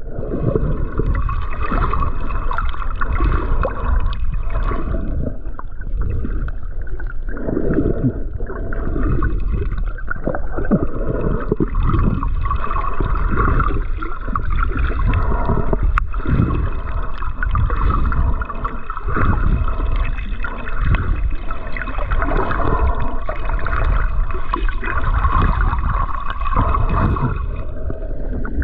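Water gurgling and sloshing close to the microphone, muffled, over a steady low rumble.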